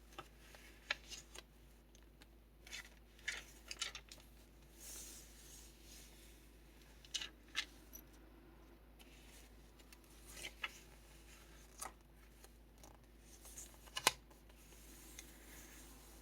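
Paper pages of a kraft-envelope junk journal being turned and handled: faint, scattered crinkles, taps and rustles, some in quick clusters, the sharpest about fourteen seconds in.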